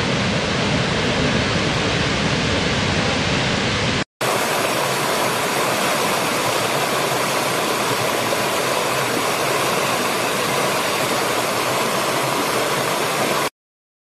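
A large waterfall's heavy, steady rush with a deep rumble, then after a momentary break a small stream splashing over rocks, lighter and without the low rumble. The water sound cuts off suddenly near the end.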